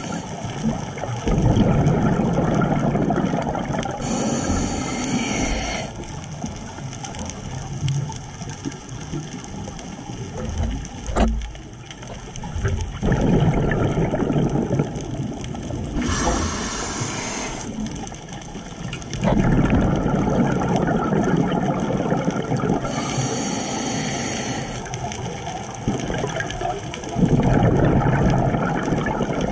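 Underwater recording of a scuba diver breathing through a regulator: three short hisses as air is drawn in, each followed by a long bubbling rumble as the breath is let out.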